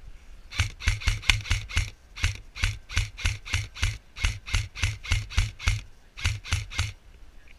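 Airsoft rifle firing rapid semi-automatic shots, each a sharp crack with a low thump, about four a second. There are about two dozen shots in three strings, with short pauses about two seconds in and near the end.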